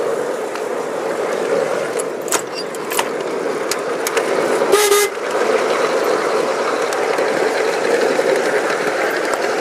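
Ride-on miniature railway locomotive running along garden track: a steady rumble of wheels on rail with a few sharp clicks, and one short horn toot about five seconds in.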